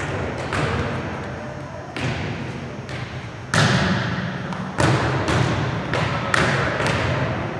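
Volleyball being struck back and forth in a passing drill: a string of about eight sharp thuds of ball on forearms and hands, echoing around the gym, the loudest about three and a half seconds in.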